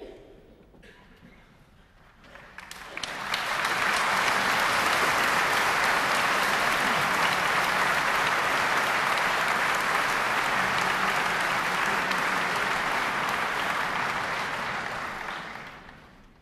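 Concert-hall audience applauding: it starts a couple of seconds in, swells quickly to a steady level, then dies away near the end.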